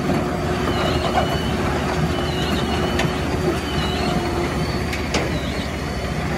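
Tracked mobile impact crusher running at work: a steady diesel-driven drone and clatter of machinery, with short high squeals recurring about once a second and a couple of sharp knocks.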